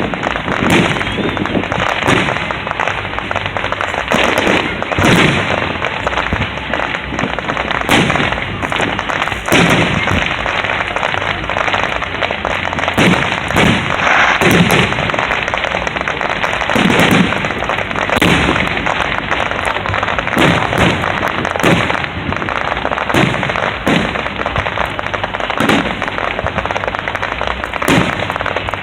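Fireworks display going off in quick succession: sharp shell bursts, one or two a second, over continuous crackling.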